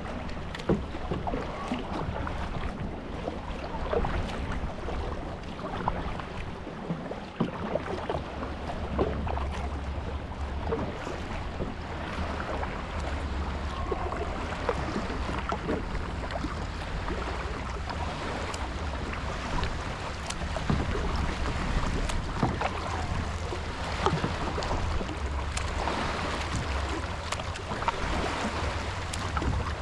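Kayak paddling: irregular splashes and drips of water from the paddle strokes, with wind rumbling on the microphone.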